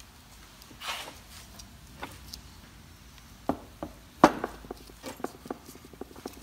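Small metal clicks and knocks as brake pad clips are pressed into a brake caliper bracket and the bracket is handled on a wooden workbench. There is a rustle about a second in, the sharpest click a little after four seconds in, and then a run of light clicks.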